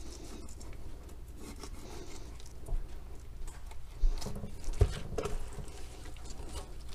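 Fillet knife cutting along a black drum's scaled skin as the fish is filleted on crushed ice in a stainless steel sink: light scraping and ticking, with two dull knocks about four and five seconds in.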